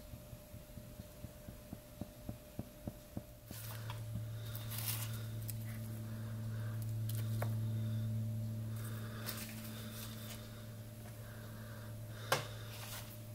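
Small items handled on a towel: a run of faint, regular clicks, about three a second. Then rustling as tinder is set into a leather pouch, with a sharp click near the end. A low steady hum starts suddenly a few seconds in.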